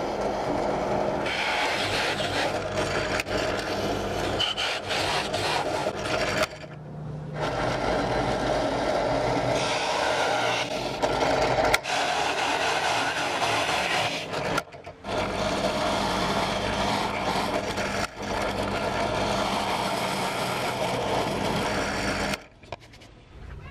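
Bench drill press running and its bit cutting into a wooden board, a steady motor hum under the rasping of the cutter in the wood. The cutting drops away briefly about six and a half seconds in and again near fifteen seconds, and stops a little before the end.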